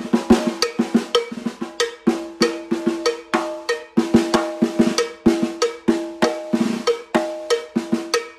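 Acoustic drum kit played with ProMark Firegrain Rebound 5B wooden sticks: a quick run of strikes across the snare and toms. The undamped snare is ringy, with a steady ringing overtone under the hits. The playing stops at the very end and the heads ring on briefly.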